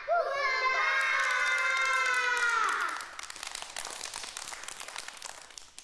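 A group of young children call out together in one long cheer that slowly falls in pitch for about three seconds. Then they clap their hands.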